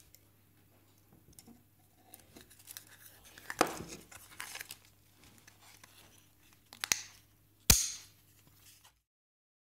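Hands handling a laser-cut wooden panel and a metal push-button switch: rustling and scraping with a few sharp clicks, the loudest about three-quarters of the way through. The sound cuts off to silence about nine seconds in.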